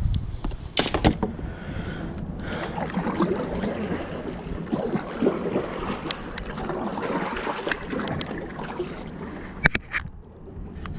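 Kayak paddle strokes, the blades splashing and water running off them. A few sharp knocks come about a second in and again near the end.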